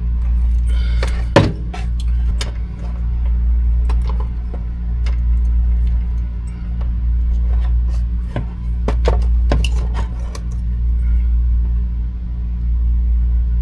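A steady low machine hum, with intermittent clicks, taps and small clatters of tools and wire parts being handled during electrical work.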